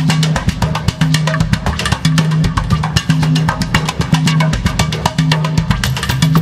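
Background dance music with a steady, fast drum-kit beat and a repeating bass line.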